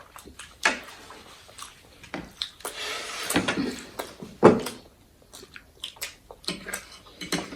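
People eating spicy instant noodles and momo: wet chewing and slurping, with scattered sharp clicks and one louder click about four and a half seconds in.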